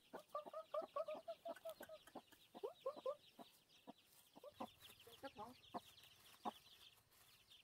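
Chickens clucking in short, scattered calls, over a continuous rapid high-pitched chirping.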